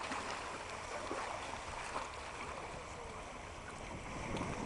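Choppy sea water lapping and wind rumbling on the microphone.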